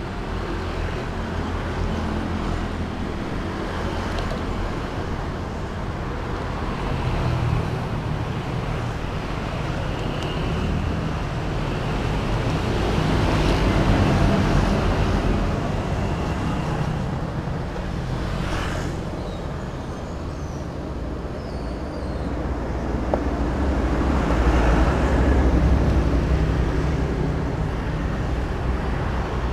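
Steady road traffic going by, a low rumble that swells as vehicles pass, louder about halfway through and again near the end.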